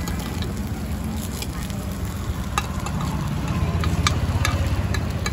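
A metal spoon and tongs clicking and scraping against a dimpled metal frying pan as round pastry balls are turned, over light sizzling. A steady low rumble runs underneath.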